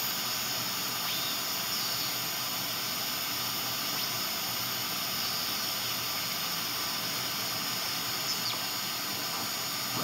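Steady radio static hiss from an RTL-SDR receiver's audio, with a couple of faint, brief whistles sweeping in pitch. No station comes through because the receiver is tuned just off the Drake TR4's 9 MHz IF.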